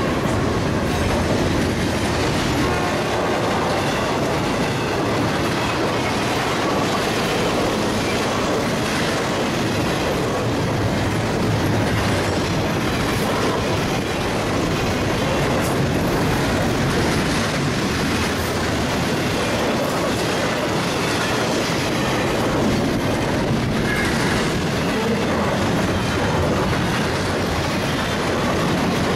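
Double-stack intermodal freight train's well cars rolling past at track speed: a steady, loud rumble and clatter of steel wheels on the rails.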